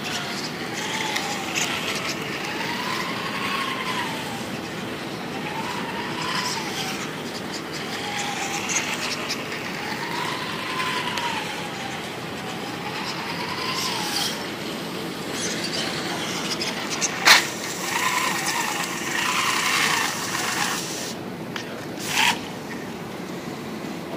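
Small electric drive motor of a line-following RC car whining, its pitch rising and falling every couple of seconds as the PID speed controller adjusts its speed. Two sharp knocks in the last third, the louder one about 17 seconds in.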